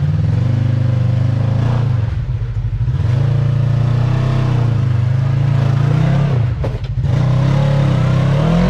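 Side-by-side UTV engine revving up and down under load as it climbs a rocky obstacle, the throttle easing off briefly twice and climbing again near the end.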